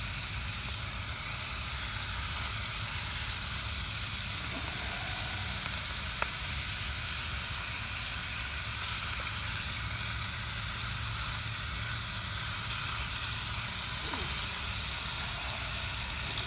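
Bacon sizzling steadily as it fries in a pan over a campfire, with a single sharp pop about six seconds in.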